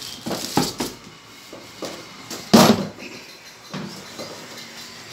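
Handling clatter from a hard plastic chainsaw carry case and the clear plastic bag around the saw: crinkling and several knocks as the saw is lifted out, with the loudest knock about two and a half seconds in.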